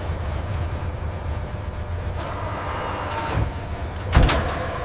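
Steady low machinery rumble, with a hiss joining about two seconds in and a heavy clunk about four seconds in.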